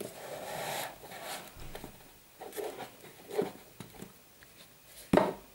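Hands pressing and rubbing a fabric-covered padded insert down into a round box: uneven soft rustling and brushing, with one sharp knock a little before the end.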